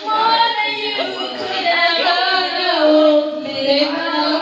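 High-pitched voices singing a song, holding long notes.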